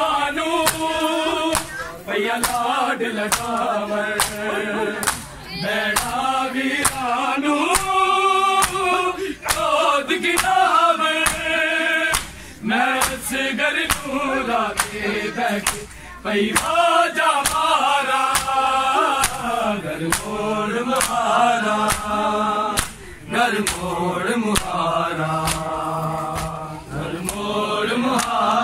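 Men's voices chanting a Punjabi noha together in a mourning melody, punctuated by a regular beat of open hands slapping bare chests (matam), roughly two slaps a second.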